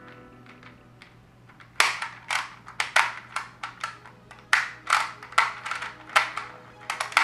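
ShengShou magnetic Rubik's clock being solved by hand: a quick, irregular run of plastic clicks and clacks from its dials and pins, several a second, starting about two seconds in.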